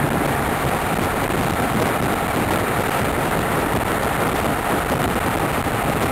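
Steady rushing noise of a Raketa hydrofoil under way, heard from on board: engine, water and wind blended into one even roar with no distinct tones.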